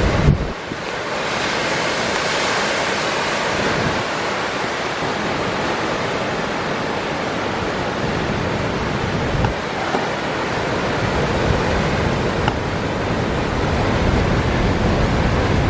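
Heavy storm surf breaking on coastal rocks in a continuous rush, with strong wind buffeting the microphone. A brief thump sounds just after the start.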